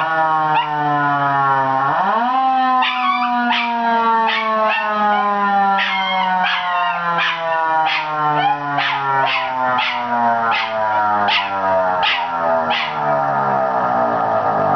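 A siren wails: its pitch rises about two seconds in, then slowly falls. A young miniature schnauzer howls and yips along to it, in short cries repeated about every half second.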